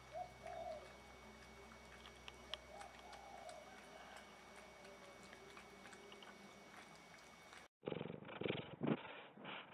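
Two cats eating wet food from a bowl: faint chewing and lapping clicks over a low steady hum. About eight seconds in the sound cuts off and a louder, muffled cat purr starts, pulsing roughly twice a second.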